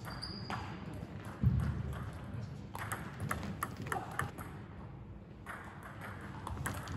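Table tennis rally: the ball clicking sharply off the table and the bats in quick, irregular strokes, with one heavier thud about a second and a half in.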